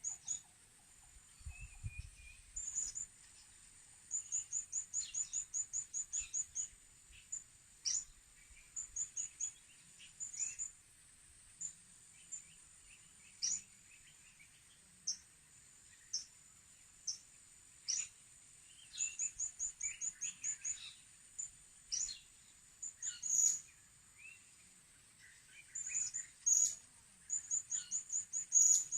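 Blue-crowned hanging parrots (serindit) calling: sharp, very high chirps, often in quick trains of several notes a second, scattered through the whole stretch with a steady faint high hiss behind them.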